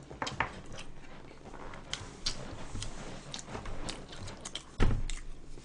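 Close-miked eating: chewing, with many small sharp clicks and crackles scattered throughout, and one dull thump nearly five seconds in.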